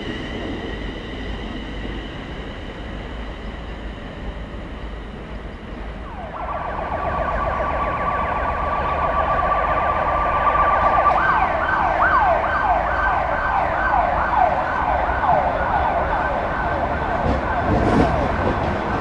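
A Class 360 electric multiple unit pulling away, its traction motors whining, fades out. About six seconds in, an emergency vehicle siren starts: a quickly repeating rising-and-falling yelp over a steady tone that steps higher partway through. Near the end the low rumble of a Class 66 diesel locomotive arriving comes in under it.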